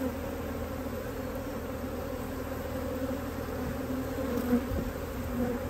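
Honey bees buzzing around an opened hive: a steady, even hum.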